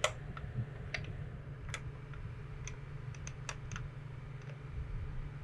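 Scattered sharp metal clicks and clinks of a socket wrench being fitted onto a spin-on oil filter, irregularly spaced, the loudest right at the start and a quick cluster of three past the middle. A steady low hum from a swamp cooler runs underneath.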